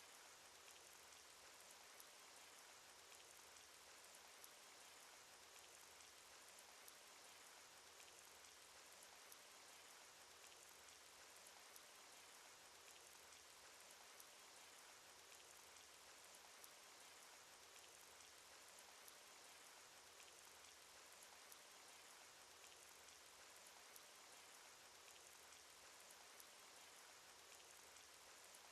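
Cartoon rain sound effect: faint, steady rain hiss with scattered sharp drop ticks, and a slightly louder drop about every two and a half seconds.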